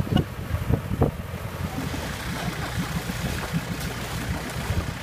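Off-road vehicle driving through deep water: a low engine rumble with water sloshing, and wind buffeting the microphone. A few thumps come in the first second or so.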